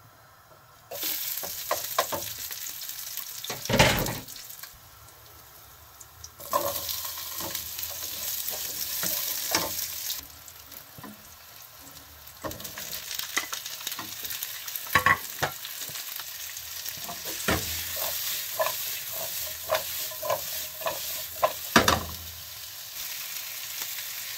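Carrots, garlic and bell peppers sizzling in hot oil in a wok while a wooden spatula stirs them, scraping and knocking against the pan. The sizzle starts about a second in and swells and eases in spells, with several sharp knocks along the way.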